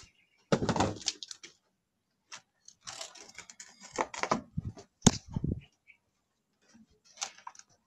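Irregular knocks, thumps and rustling in a few short bursts, the loudest about half a second and five seconds in.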